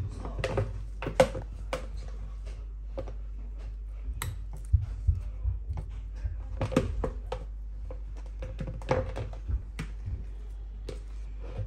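Irregular clicks, taps and knocks of kitchen utensils against dishes while mashed potato is put onto a shepherd's pie, with the odd duller thunk among them.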